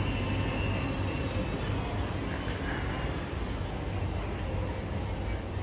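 Supermarket ambience: a steady low hum under an even wash of background store noise.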